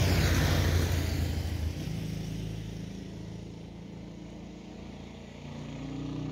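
A motor vehicle engine running, loudest at the start and fading over the next few seconds.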